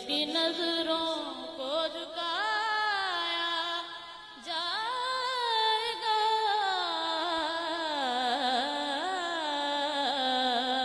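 A man sings a naat (Urdu devotional song) into a microphone. He holds long, drawn-out notes that waver and bend in melismatic runs, with a short break about four seconds in.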